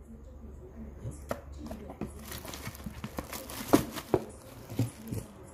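Plastic packaging and small accessories being handled: scattered clicks and knocks with some crinkling, busiest and loudest around the middle.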